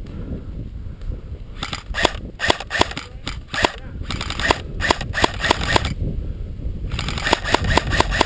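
Airsoft guns firing in three strings of rapid single shots, about four or five sharp cracks a second, over a low rumble of wind on the microphone.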